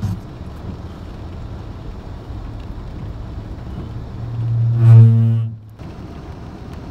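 Steady low rumble of a car idling in the rain, heard from inside the cabin. About four seconds in, a loud, steady, low-pitched tone swells up and holds for about a second and a half, then cuts off.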